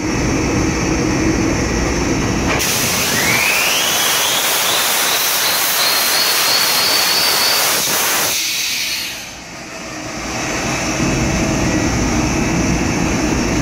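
Nine-cylinder marine diesel generator being blown down: starting air turns the engine over with the indicator cocks open, so air hisses loudly out of the cylinders for about six seconds over a rising whine, then cuts off sharply. This clears any water or oil from the cylinders before the first start. The drone of the other running generators fills the engine room before and after.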